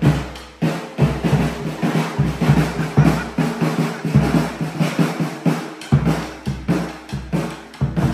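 A bass drum beaten with a mallet in a steady rhythm of sharp strikes and deep booms, with an acoustic guitar strummed along.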